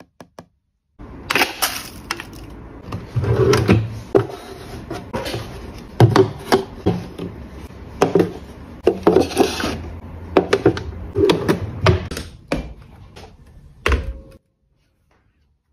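Household items being handled and set down: a run of knocks, clacks and rustles, several of them sharp, that stops abruptly shortly before the end.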